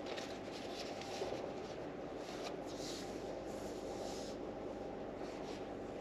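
Soft rustling of paper book pages being handled, a handful of short swishes, over a steady low hum inside a car cabin.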